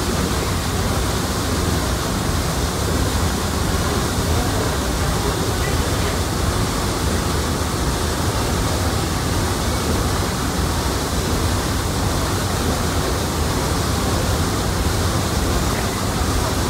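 A paddle steamer's paddle wheel churning the water, heard through a porthole in the paddle box: a loud, steady rush of spray and splashing water with a deep rumble beneath.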